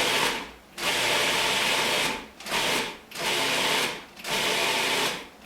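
Food processor pulsing cauliflower into rice-sized pieces: the motor and blade run in about five short bursts, each under a second and a half, with brief pauses between them.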